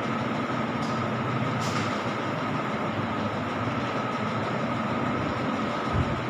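Steady background noise with a constant faint high tone running through it.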